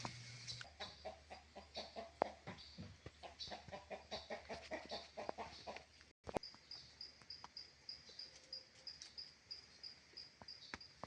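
Chickens clucking in short, repeated notes. After a brief break in the sound about six seconds in, a steady series of high, rapid chirps, about three a second, takes over.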